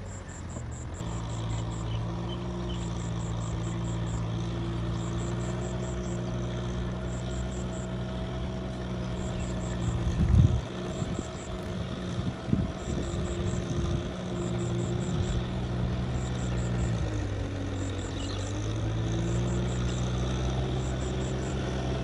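Kubota tractor's diesel engine running steadily under load while plowing a flooded rice paddy. Its pitch sags and then recovers late on, and a couple of loud thumps come about halfway through.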